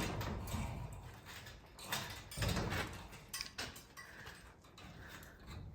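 Garage door hardware rattling and clunking as the door is worked on, with irregular knocks and a heavier thud at the start and another about two and a half seconds in.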